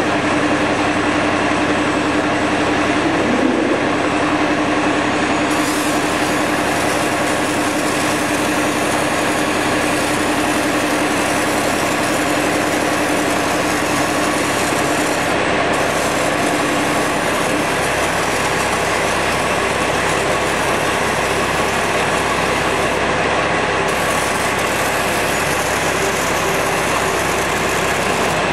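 Loud, steady industrial machinery noise. A hum in it stops about seventeen seconds in, and a higher hiss cuts in about five seconds in, stops about ten seconds later, and comes back near the end.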